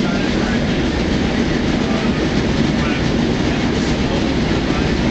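PCC streetcar running along its track, heard from inside the cab: a steady rumble of steel wheels on rail and the car's running gear.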